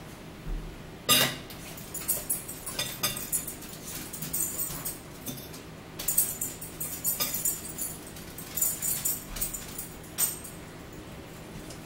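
Metal fork clinking and scraping against a plate in irregular bursts of bright, jingly clicks while someone eats.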